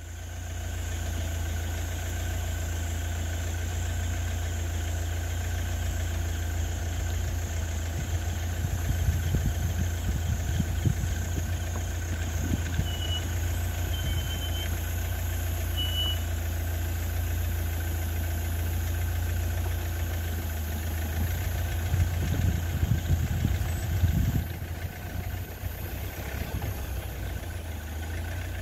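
Steady low hum of an idling engine, with louder low rumbling twice, about eight and about twenty-one seconds in. Three short, high chirps come near the middle.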